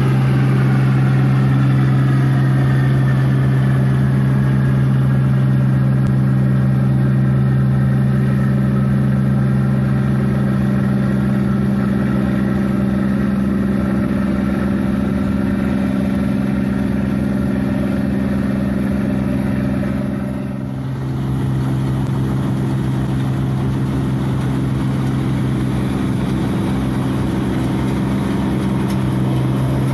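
New Holland 8060 combine harvester running under load while harvesting rice, its engine and threshing machinery giving a steady low hum. A higher whine eases down in pitch over the first several seconds, and the sound dips briefly about two-thirds of the way through.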